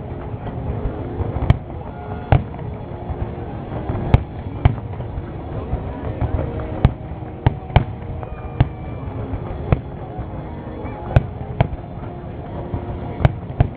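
Aerial fireworks bursting: about a dozen sharp bangs at irregular intervals, some close together, over a steady background of crowd voices.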